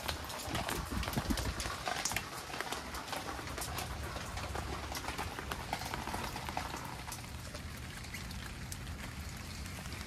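Mitsubishi Electric mini-split heat pump outdoor units running in the rain: a steady low hum from the fans and compressors, with scattered sharp clicks of rain dripping and hitting nearby surfaces.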